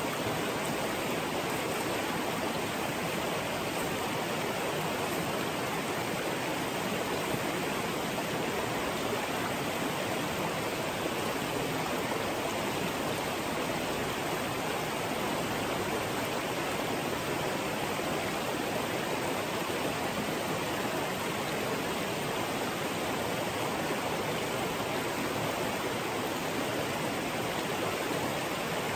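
Small mountain creek rushing over rocks and riffles, a steady, unbroken whoosh of white water. It is running high with rain and snowmelt.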